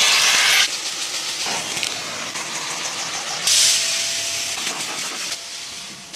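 Pressurised car-cleaning sprayer hissing, with two loud bursts, one at the start and one about three and a half seconds in, and a lower steady hiss between them.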